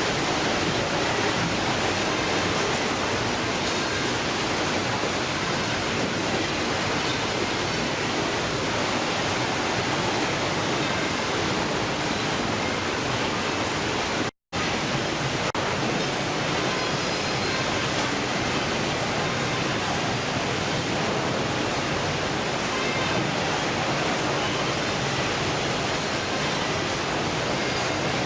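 Steady rushing noise, even across high and low pitches, broken once by a brief cut to silence about fourteen seconds in.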